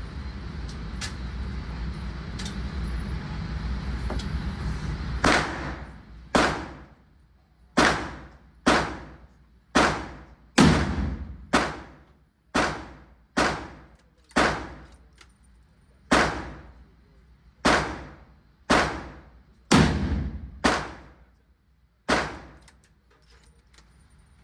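Gunshots at an indoor range, about eighteen of them in steady succession after a few seconds of steady background noise. Each is a sharp crack with a short reverberant tail.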